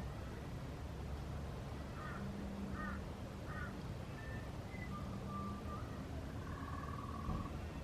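Garden birds singing: three quick repeated curling notes, then a few short whistles and a trill near the end, over a steady low rumble.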